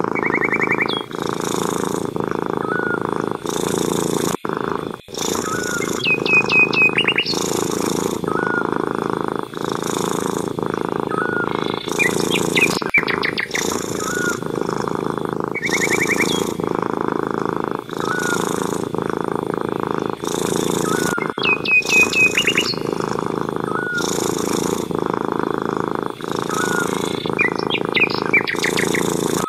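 Domestic cat purring steadily, swelling and easing with each breath about every second and a half. A bird chirps repeatedly in the background, with an occasional quick trill of a few notes.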